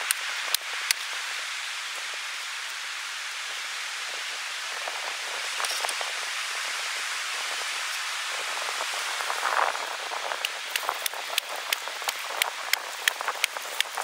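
Steady hiss of surf on a beach. From about ten seconds in, a quick series of sharp knocks or taps, roughly two to three a second, comes in over it.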